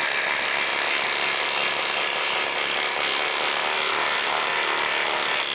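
Cordless impact drivers, a DeWalt DCF850 and a Bosch Freak, hammering steadily while driving 6-inch by 1/2-inch lag screws into a wooden post.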